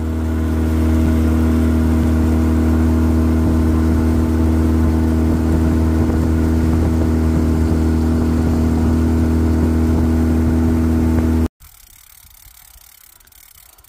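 Small open motorboat's engine running steadily at cruising speed, with water rushing along the hull. It cuts off abruptly near the end, leaving a much quieter hiss.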